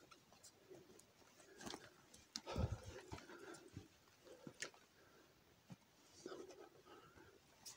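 Faint footsteps crunching and rustling over snowy forest ground, with scattered small clicks and a louder crunch about two and a half seconds in.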